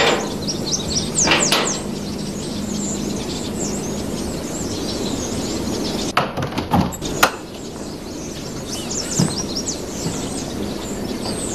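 Birds chirping over a steady low hum, with a few sharp knocks and clicks about six to seven seconds in as a panelled double door is unlatched and opened.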